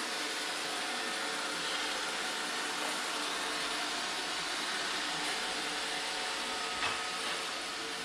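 iRobot Roomba 565 robot vacuum running steadily on a wooden floor, its suction motor and brushes making an even hiss, with one short click near the end.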